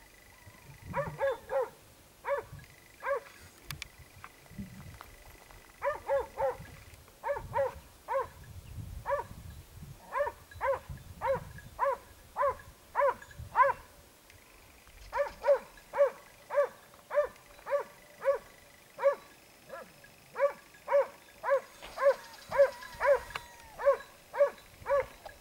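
Hunting dog barking repeatedly in a steady rhythm, about two barks a second, with a couple of short pauses: a hound giving tongue during a wild boar hunt.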